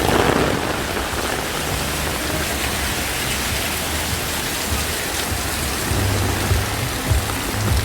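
Heavy rain pouring down steadily on the street and surfaces, with a low rumble underneath that grows stronger near the end.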